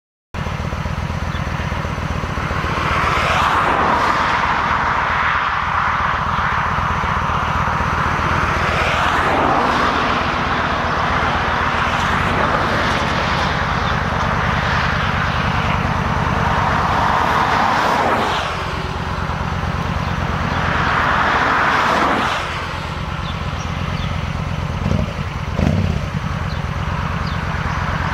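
Yamaha V-Star 1300's V-twin engine idling with a steady low pulse, while the rush of passing traffic swells and fades several times. A couple of sharp low knocks come near the end.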